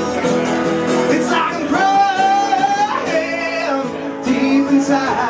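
Acoustic guitar strummed steadily while a man sings long, wavering held notes.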